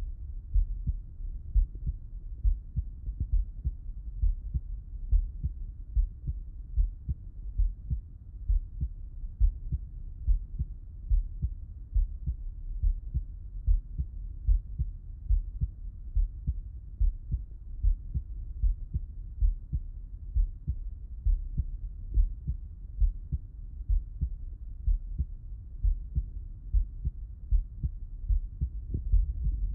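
A man's heartbeat heard through a Littmann stethoscope, lying on his left side: regular, steady low thumps of the lub-dub heart sounds.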